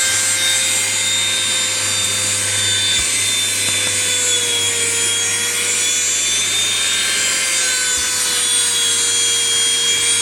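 Small vacuum cleaner running steadily: a high motor whine over a rush of air, its pitch dipping slightly now and then as it works under a bed.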